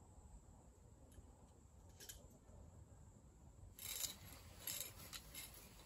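Near silence, with a brief scrape about two seconds in and a cluster of short scraping clicks from about four seconds in.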